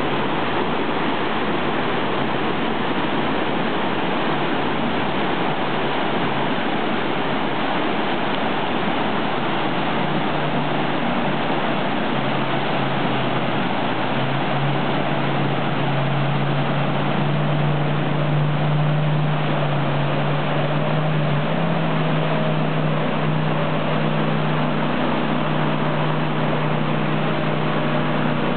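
Whitewater rapids rushing steadily, joined about a third of the way in by a jet boat's engine: a low hum that rises a little in pitch and grows louder, strongest just past the middle, as the boat powers upstream through the rapid.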